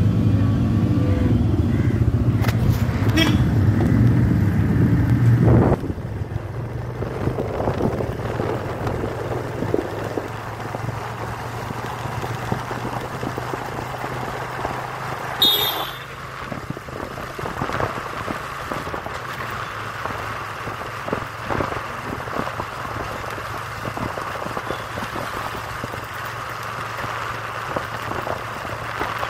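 Motorcycle engine running close up for the first six seconds, then mostly wind and road noise as the bike rides along. A short high-pitched beep sounds about halfway.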